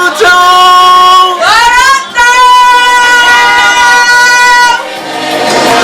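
A high voice singing long held notes: a short note, then a rising slide into a note held about three seconds that fades out near the end.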